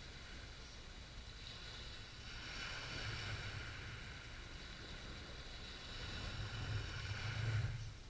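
A steady engine hum with a whine over it, swelling about three seconds in and louder again near the end, then cutting off abruptly.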